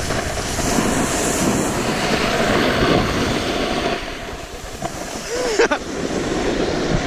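Wind rushing over the microphone of a skier's action camera, with skis sliding over groomed snow during a downhill run. The noise is loud for the first four seconds, then eases, with one short sharp sound about five and a half seconds in.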